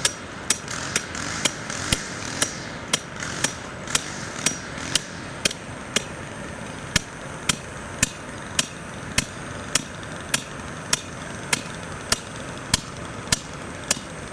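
A three-pound hammer striking the top of a half-inch copper pipe again and again, about two blows a second, driving the pipe into the ground. The blows are sharp metal-on-metal strikes.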